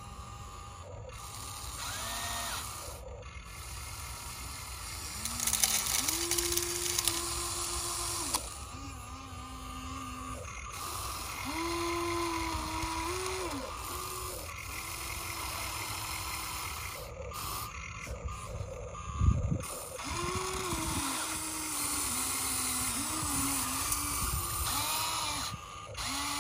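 Huina 1593 RC excavator's electric motors whining in short runs that start and stop, each at a steady pitch that steps up or down as the boom, arm and bucket move. Its bucket digs in gravel, and there is a sharp knock about nineteen seconds in.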